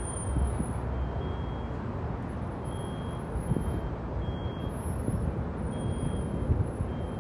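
Steady low outdoor rumble of traffic, with a few faint knocks.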